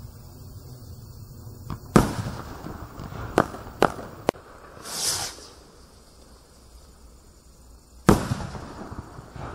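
Thunder Hawk firework rockets: one bursts with a loud bang about two seconds in, followed by three sharp cracks. The next rocket then goes up with a whoosh about five seconds in and bursts with another bang near the end.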